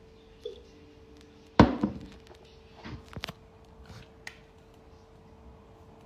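A plastic drink bottle set down with one sharp thunk about a second and a half in, followed by a few softer knocks and clicks as it is handled.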